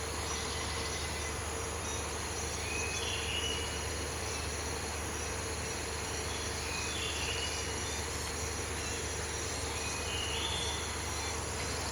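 Steady chorus of rainforest insects, a continuous high buzzing, with a short call repeating about every three to four seconds.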